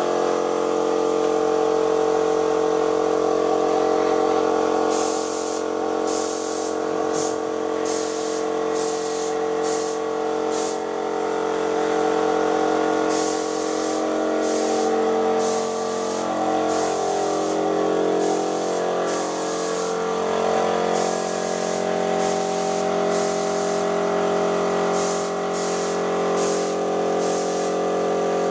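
Motor-driven paint sprayer running with a steady hum while paint is sprayed in many short hissing bursts, trigger pulled and released again and again. The spraying starts about five seconds in, with a short pause near the middle.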